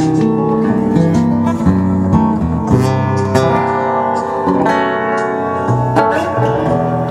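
Acoustic guitar music: a steady run of plucked notes and chords.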